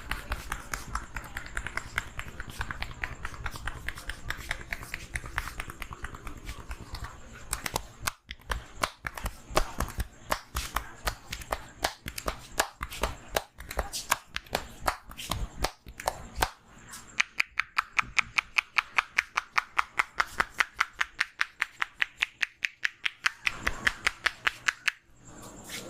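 Hand strikes of a head massage. A denser steady sound comes first; about eight seconds in, sharp slaps begin, irregular at first, then a fast, even run of about five strikes a second.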